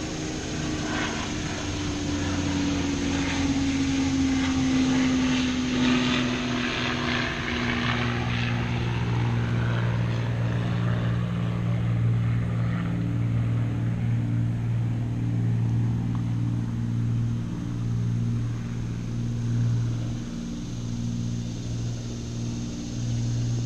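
An engine droning steadily throughout, with one note sliding slowly down in pitch over the first six seconds.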